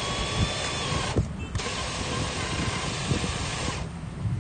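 Traxxas TRX-4 Defender's brushed 550 21-turn motor and drivetrain whining steadily under throttle as the crawler works through mud, dropping out briefly about a second in and cutting off near the end.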